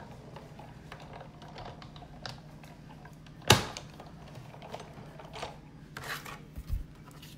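Big Shot die-cutting machine being hand-cranked to run the cutting plates and die through its rollers: a string of small plastic clicks and clacks, with one sharp, loud clack about halfway through.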